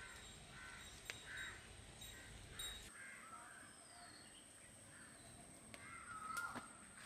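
Crows cawing, the loudest caw about six seconds in. Underneath for the first three seconds are faint, bell-like background music tones, which then cut off.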